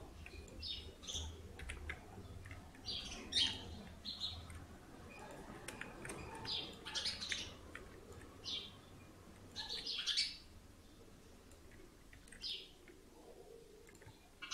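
Faint, short high-pitched chirps scattered irregularly, with a few light clicks, over a low background hum.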